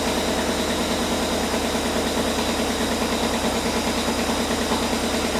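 Mazda RX-7 FC's two-rotor 13B rotary engine idling steadily with an even pulse, running with no exhaust system, only a flex hose off the exhaust.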